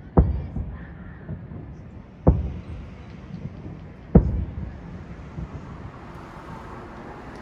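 Three distant aerial firework shell bursts booming about two seconds apart, each trailing off in an echo.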